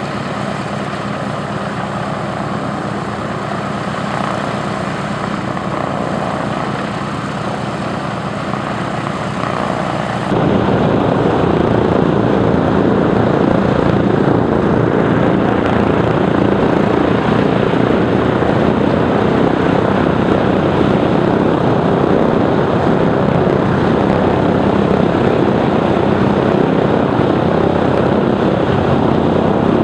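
Douglas DC-3's two radial piston engines running on the ground with propellers turning, a steady, loud throb. About ten seconds in the sound steps abruptly louder and fuller.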